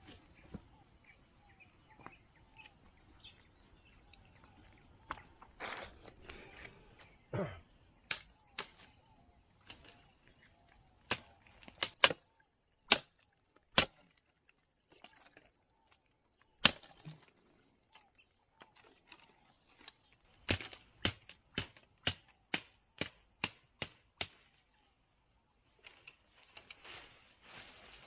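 A series of sharp knocks or cracks, scattered and uneven at first, then a regular run of about two a second near the end, over a steady high-pitched drone.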